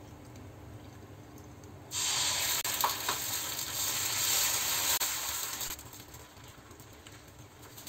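Chilla batter sizzling as it hits a hot, oiled iron tawa and is spread with a steel ladle. The sizzle starts suddenly about two seconds in and dies down near six seconds.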